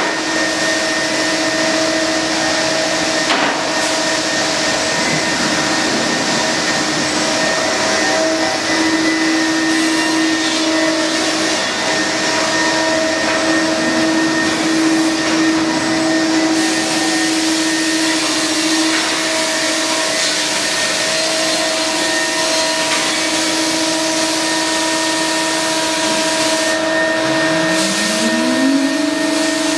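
CNC router spindle running at a steady high-pitched whine while milling wooden stair treads, with the dust extraction running. Near the end a motor spins up, its pitch rising to join the whine.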